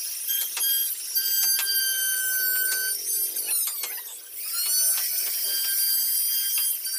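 Electric plunge router running at high speed with a high-pitched whine as it carves into a wooden panel, with scattered sharp ticks. About four seconds in, the pitch and loudness dip and then climb back.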